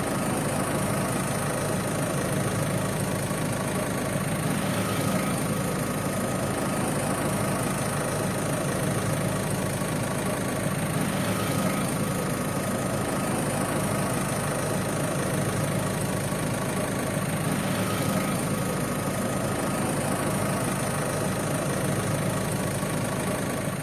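Toyota HiAce van's engine idling steadily.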